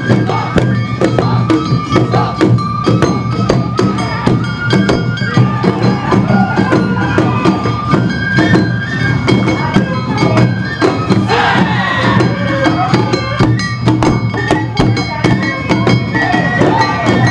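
Awa Odori festival music played live: fast, dense drumming and struck bells, with held notes from a bamboo flute over them.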